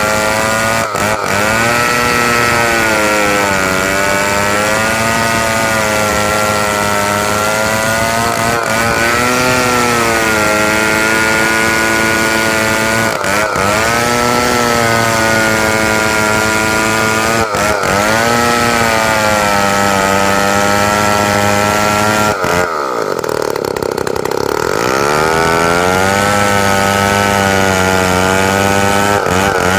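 Two-stroke chainsaw running near full throttle while ripping timber along its length, its engine note sagging and recovering under the load of the cut. About 23 seconds in, the revs drop sharply and then climb back up.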